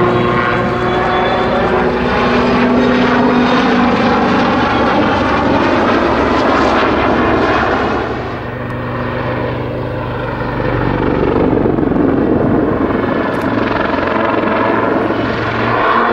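Westland Lynx military helicopter flying aerobatic manoeuvres: its rotor and twin turboshaft engines run steadily, with tones that slowly glide in pitch. The loudness dips about halfway through and then swells again.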